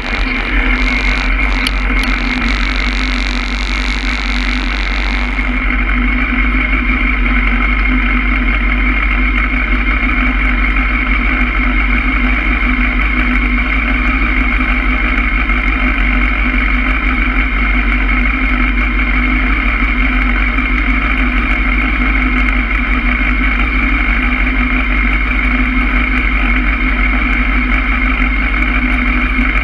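Honda Hornet's inline-four engine idling steadily in neutral at a standstill. Wind hiss is heard for about the first five seconds, then stops as the bike comes to rest.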